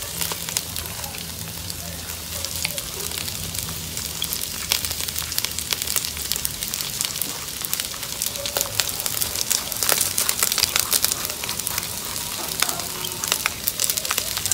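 Chicken wings sizzling in hot oil with garlic and ginger in a wok: a steady sizzle with frequent sharp pops, the popping thickest around the middle.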